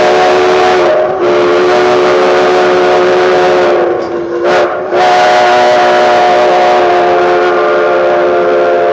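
Train whistle blowing a long chord of several tones at a railroad crossing, briefly broken about a second in and again near the middle, where the pitch wavers before it sounds again.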